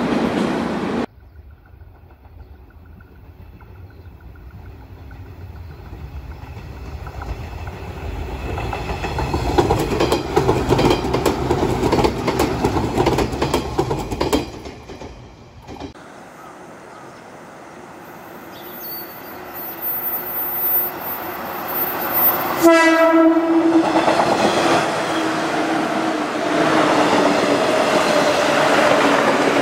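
JR Kyushu 415 series electric trains running by. One train draws near and grows louder, with wheels clacking over the rail joints. After a cut, another approaches and gives one short horn blast about two-thirds of the way through, then keeps running close and loud.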